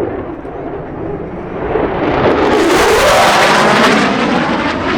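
Aircraft making a fast pass at an airshow, its noise swelling to its loudest about three seconds in with a dipping then rising pitch, then fading.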